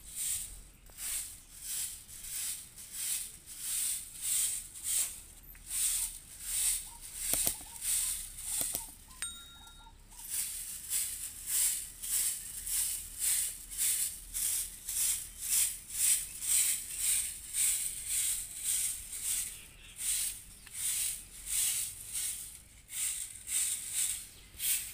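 Soft grass broom sweeping a paved courtyard: a steady run of brushing swishes at about two strokes a second, with a short pause about ten seconds in.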